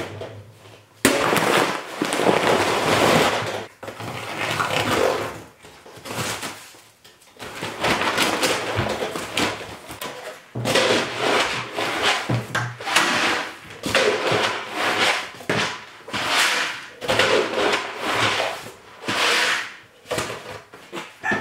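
Paper towel scraping across a steel flat-top griddle in repeated strokes, about one a second through the second half, with paper rustling and crumpling.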